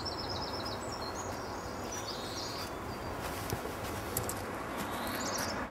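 Small birds chirping in short, quick series of high notes, a few times over, above a steady outdoor background noise.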